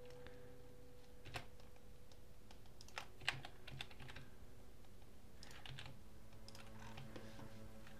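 Faint computer keyboard and mouse clicks, a few scattered keystrokes and small clusters of clicks, over a low steady hum.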